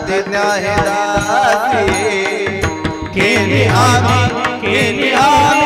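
Marathi devotional bhajan music: an ornamented melody with rapid wavering turns over a hand-drum beat.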